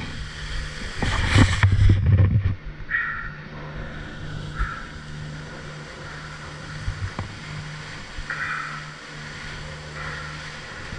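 Ski chairlift station machinery running with a steady low hum. A loud rush of noise comes about a second in and lasts a second or so, and a few short higher sounds come and go.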